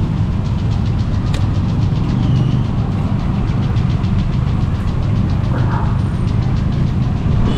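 A nearby motor engine idling: a steady low rumble with a fast, even ticking over it.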